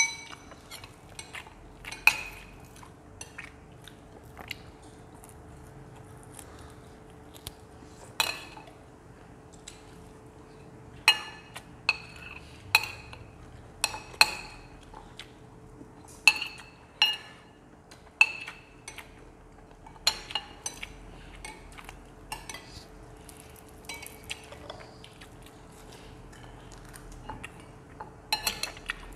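Metal spoons and forks clinking and scraping against ceramic plates and bowls as two people eat, in scattered irregular clinks that ring briefly.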